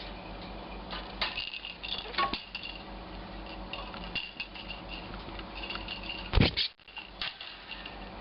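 Light clinks and taps of a budgie's small toy ball knocking about on a hard surface, with one loud bump about six and a half seconds in.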